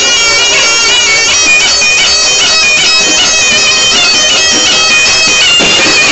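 Reog Ponorogo accompaniment led by the slompret, a shrill double-reed shawm, playing a loud melody that keeps stepping between a few high notes.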